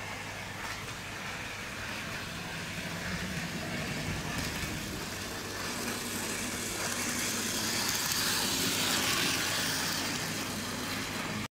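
Micro motor of a Bachmann Wickham Type 27 trolley model, running with its wheels on OO gauge track. The whirr grows louder over the first eight or nine seconds as the model approaches, then cuts off suddenly near the end.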